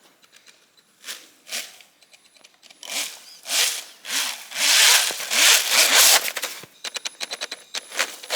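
3D-printed Alpha-6 RC snowmobile with a sensorless brushless motor, stuttering as it tries to get going, then driving its track through the snow in a loud rushing spell from about three seconds in, with a run of quick stutters near the end. The stuttering comes from the cheap sensorless motor, not from the sled's design.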